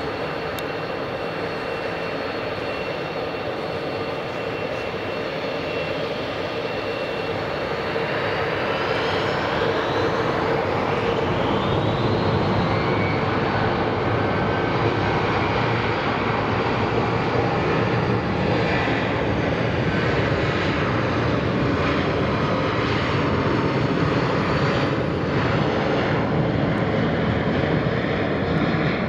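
British Aerospace BAe 146-200 jet with four Lycoming ALF 502 turbofans, whining at low power and then spooling up for takeoff. About eight seconds in, the whine rises in pitch and the engine noise grows louder and fuller as the aircraft starts its takeoff roll.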